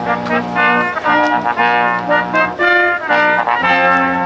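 Small brass street band playing a tune outdoors: trumpets carry the melody in short phrases over held low notes.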